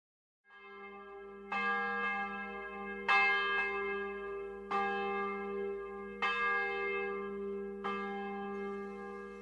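A bell tolling slowly, one stroke about every one and a half seconds, five strokes in all. Each stroke rings on into a steady hum that fades in just before the first stroke.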